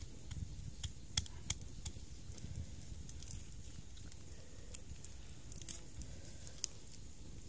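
Wooden pestle crushing garlic in a mortar: scattered sharp knocks and soft thuds, several close together in the first two seconds and a few more later, over a low steady rumble.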